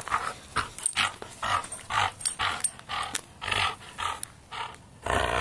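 Dog growling during a game of tug of war with a toy, a play growl, in short repeated bursts about twice a second, with a longer stretch near the end.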